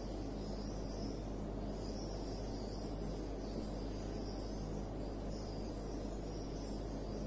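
Quiet room tone: a steady low hum, with a faint high-pitched trill that comes and goes about once a second.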